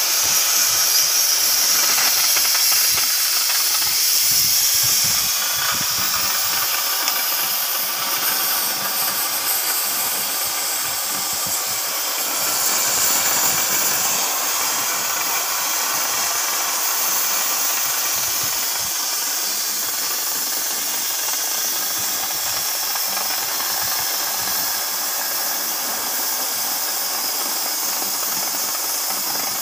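CNC oxy-fuel cutting torch hissing steadily as its gas jet cuts through thick steel plate.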